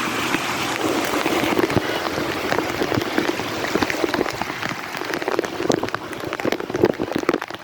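Heavy rain pouring down: a dense, steady hiss of rainfall thick with sharp individual drop impacts.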